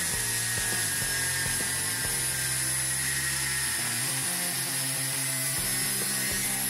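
Electric angle grinder with an abrasive disc cutting through a steel angle bar: a steady high whine with a grinding hiss as the disc bites the metal.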